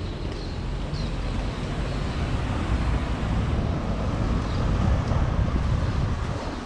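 A vehicle passing along the street. Its noise swells to a peak about five seconds in and eases off near the end, with wind rumbling on the microphone.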